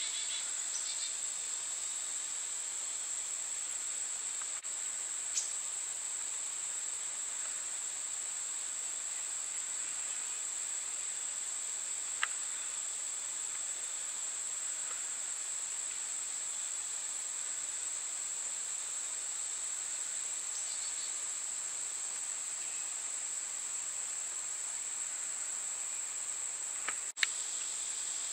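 Steady high-pitched chorus of insects calling without a break, with a few brief clicks.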